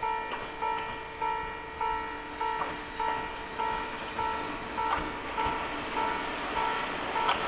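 Japanese railway level-crossing warning bell ringing in a steady electronic ding, a little under two dings a second, while an approaching Kominato Railway train grows louder toward the end.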